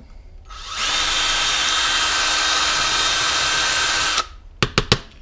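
Cordless drill boring into a black plastic bracket: the motor spins up about half a second in, runs with a steady whine for about three and a half seconds, then stops. A few sharp clicks follow near the end.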